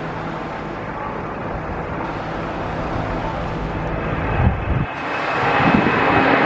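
Twin jet engines of a Boeing 767 freighter at takeoff power as it lifts off and climbs away: a steady jet noise that grows louder, with a brief low thump about four and a half seconds in and a high whine joining after it.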